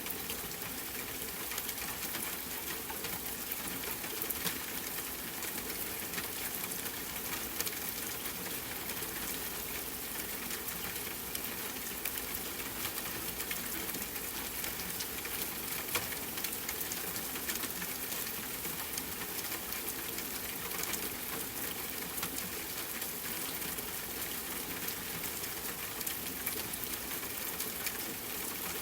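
Rain falling on a tent with a campfire crackling: a steady, even hiss dotted with many small, sharp ticks.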